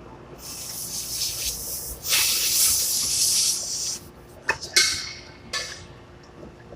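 Pressurised refrigerant hissing out of an air-conditioner charging hose or service valve. One long hiss that swells and cuts off at about four seconds, then three short hissing bursts.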